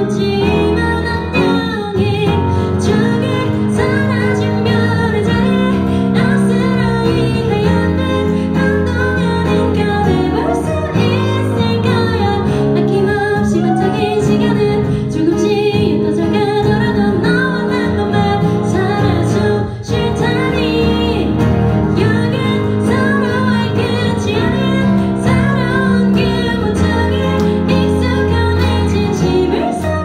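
A woman singing a ballad live, accompanying herself on a Kurzweil stage keyboard playing sustained chords.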